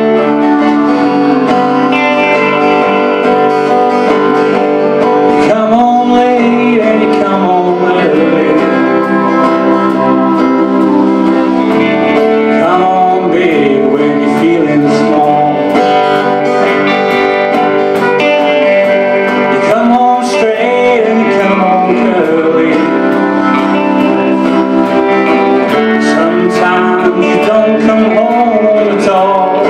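Live band playing a country-style song on electric and acoustic guitars, steel guitar and drums, with a singing voice carrying a wavering melody over steady chords.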